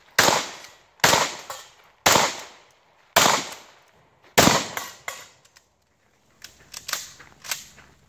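Shotgun fired five times, about a second apart, each loud shot ringing off before the next. A few lighter clacks follow near the end.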